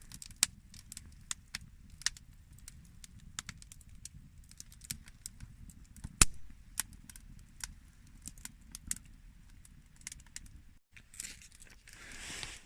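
Wood campfire crackling with frequent small pops over a low rumble, and one loud snap about six seconds in. A short hissing rush comes near the end.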